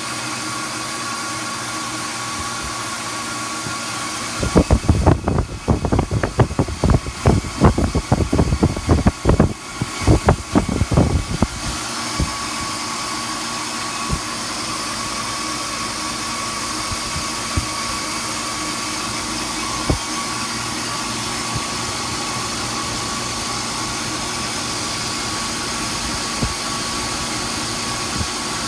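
HVAC unit running with a steady mechanical hum. About four seconds in it breaks into a loud, rapid, irregular rattling and knocking for roughly seven seconds, then settles back to a steady run with an occasional tick. This is the abnormal startup noise the unit is being checked for.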